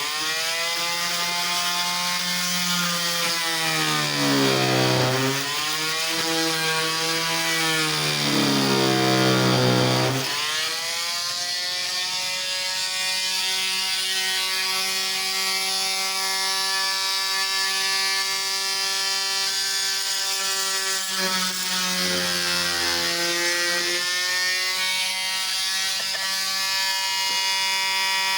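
Electric oscillating saw (multi-tool) running and cutting wood: a steady motor whine that sags in pitch and recovers as the blade is pressed into the cut, several times in the first ten seconds and once more about 22 seconds in, running evenly in between.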